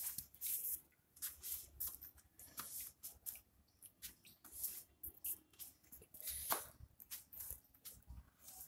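Irregular scratchy scuffs and rustles of a puppy scrabbling about on a woven floor mat while playing.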